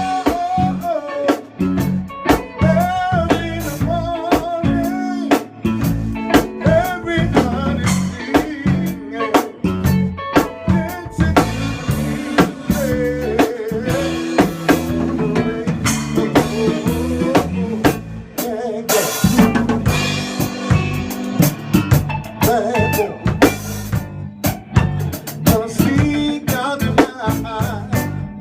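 A band playing, with a drum kit prominent: snare and bass drum hits under pitched instrumental lines.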